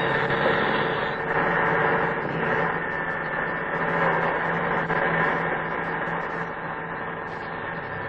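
Heavy construction machinery running steadily: a continuous engine drone with a low hum, with little change in level.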